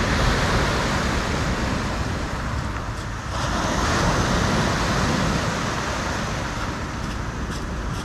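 Black Sea surf breaking on a pebble beach: a continuous rush of water that swells twice as waves come in. A few faint clicks come near the end.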